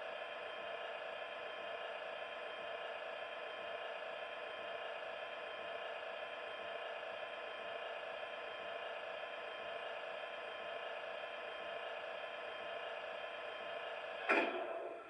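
A model Class 37 diesel locomotive's Loksound 5 sound decoder plays through its speaker a faint, steady mechanical hum made of many even tones: the opening stage of the cold-start sequence, before the engine cranks. Near the end comes a brief louder sound, and then it cuts out.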